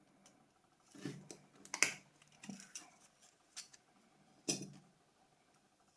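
Small clicks and scrapes of tools and plastic and metal parts being handled while a Nokia 2600 mobile phone is taken apart, with a handful of separate knocks, the sharpest about two seconds in and again near the end.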